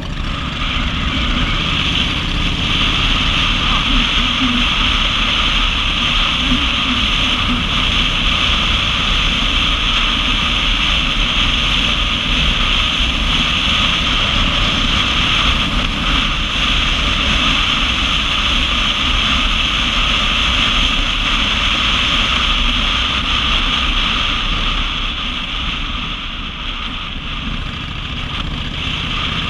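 Steady wind rush on the microphone of a camera riding on a moving cruiser motorcycle, with the bike's engine and tyres rumbling low underneath; it eases slightly near the end.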